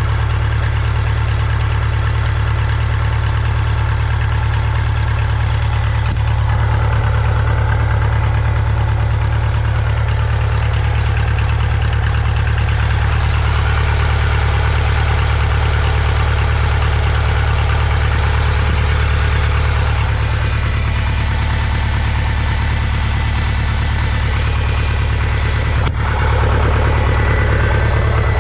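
1968 Case 580CK tractor's four-cylinder Case 188 diesel engine running steadily on its own, its first run in nearly 20 years after a long fuel-starvation starting problem.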